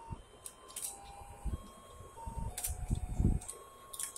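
Battery-powered fishing game toy playing its electronic beeping tune, one plain note after another, while its pond of toy fish turns. Sharp clicks and a few low thumps sound over it around the middle.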